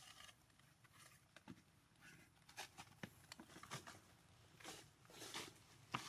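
Near silence, broken by faint scattered soft clicks and rustles as a monkey grooms a young monkey's head fur with its fingers.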